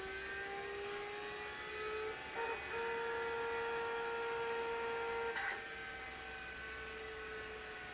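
Commodore 900 computer powering up: a steady whine from its spinning hard disk and fan, slowly rising in pitch, then stepping up with a click about two and a half seconds in and dropping back a little with another click about five and a half seconds in, over a low hum.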